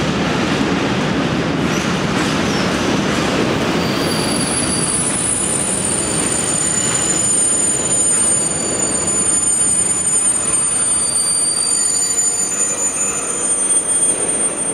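Freight train of covered grain hopper wagons rolling past, with a steady rumble of wheels on rails. From about four seconds in, the wheels squeal with several high, steady tones held over the rumble.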